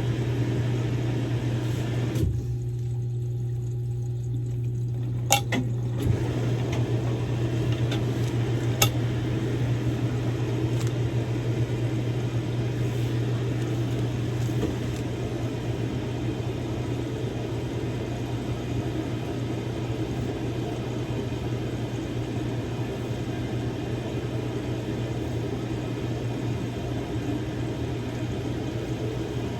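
Samsung Grande washing machine running its quick-wash course with a padded jacket inside: a steady motor hum under water and laundry churning in the drum, with a few light clicks. For a few seconds near the start the churning thins out, leaving mostly the hum.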